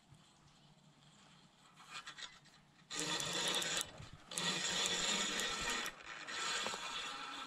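Spinning reel being cranked to retrieve a cast lure: its gears whir with a rasping sound, starting about three seconds in, pausing briefly, then running on and easing off near the end.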